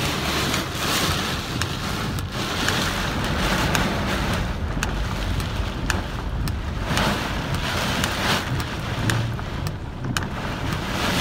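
Heavy rain hitting a car's windscreen and roof in a storm, heard from inside the cabin: a dense rush of rain with many sharp drop impacts and a few louder gusty swells, over the low road noise of the moving car.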